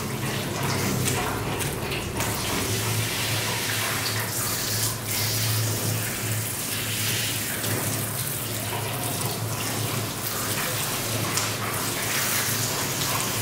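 Water spraying from a handheld shower nozzle onto a wet Rottweiler's coat and splashing into a stainless-steel grooming tub, with a steady low hum underneath.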